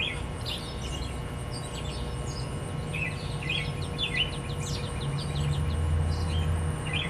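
Small birds chirping, short high chirps repeated every fraction of a second, over a low steady rumble.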